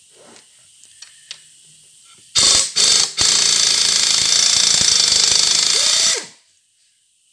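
Pneumatic impact wrench hammering on a rusted-in exhaust manifold bolt: two short blips, then a run of about three seconds that winds down with a falling whine. The old bolt breaks off under it.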